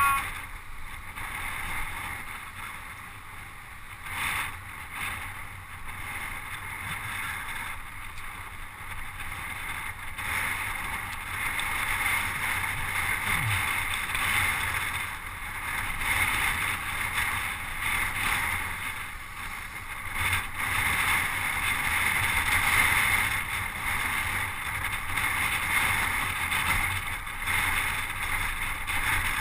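Steady rush of wind and road noise picked up by a camera riding on a moving road bike, growing somewhat louder from about ten seconds in.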